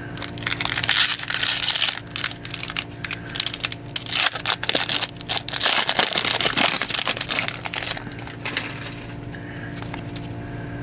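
Crinkling and rustling with many sharp little clicks as a stack of trading cards and their foil pack wrapper are handled, dying away near the end over a steady low hum.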